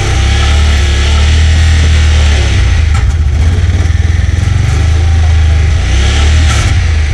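2016 Honda Pioneer 1000 side-by-side's parallel-twin engine running, a steady low drone.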